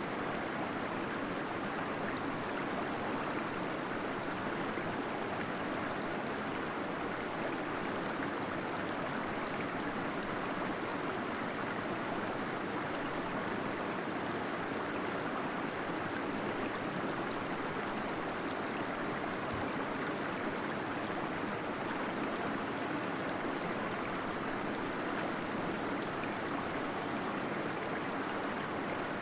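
Small waterfall in a cave flowing steadily, an even rush of falling water with gurgling.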